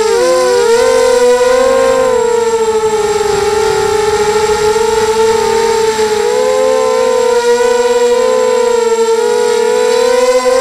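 Brushless motors and propellers of a 250-size mini quadcopter whining in flight, heard close from its on-board camera. Several close tones beat against one another, the pitch dipping and rising a little as the throttle changes.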